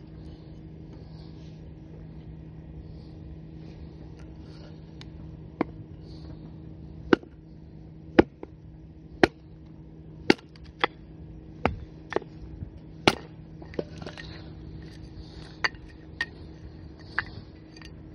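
Batoning firewood for kindling: a dozen or so sharp, clinking knocks, roughly one a second, as a knife blade is struck on its spine and driven through a piece of wood. The knocks begin about a third of the way in.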